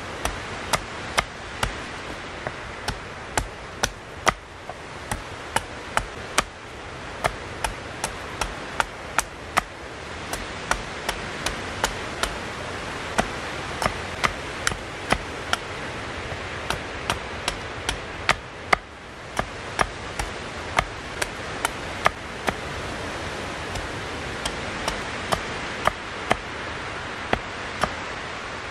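Hatchet chopping the end of an upright wooden stick to a point on a stump chopping block: sharp knocks about two a second, irregular in spacing, over a steady rushing background noise.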